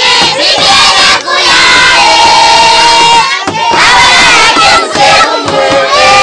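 A crowd of adults and children shouting and chanting together, loud and continuous, with long held cries rising above the clamour.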